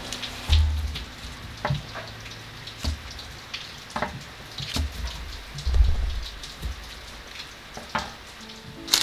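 Rain falling, a steady patter of drops, with a few sharp taps and dull low thumps scattered through it.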